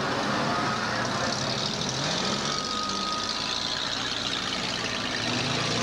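Demolition derby cars' engines running and revving, their pitch rising and falling, over a steady roar of noise.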